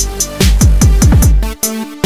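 Electronic dance music with repeated falling bass sweeps and drum hits; the deep bass drops out about one and a half seconds in.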